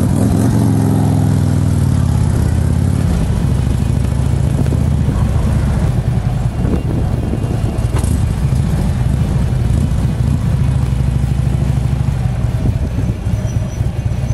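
Harley-Davidson Street Glide's Twin Cam 103 V-twin running through a Vance & Hines exhaust as the motorcycle is ridden. The engine pitch falls away over the first couple of seconds, then settles into a steady deep exhaust note.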